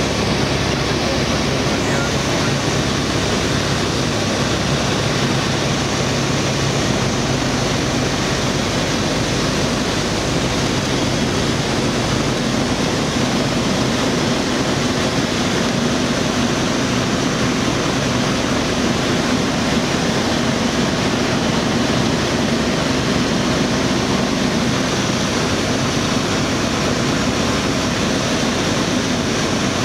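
Light single-engine propeller aircraft in flight, heard from inside the cockpit: a steady engine and propeller drone under loud rushing airflow.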